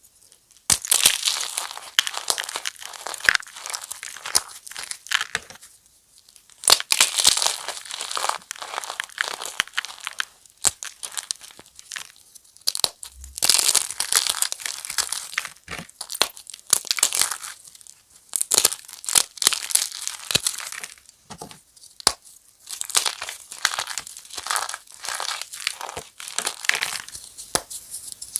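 Crispy fresh chalk mini blocks being crushed: close, dense crackling and crunching in spells of a few seconds, with short pauses between.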